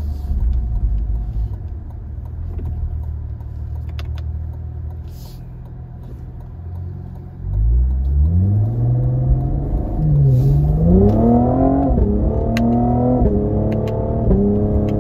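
Cadillac CT5-V's twin-turbo V6 and exhaust, running low and steady at first. About halfway through it opens up into hard acceleration, its pitch rising and then dropping at each paddle-shifted upshift, three or four times. Between the shifts the exhaust gives its back-pressure burble.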